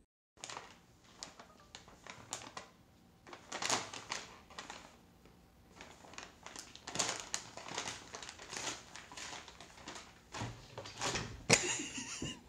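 Stiff pet-food bag crinkling and rustling in irregular bursts as a cat rummages with its head inside it, with the loudest rustle near the end.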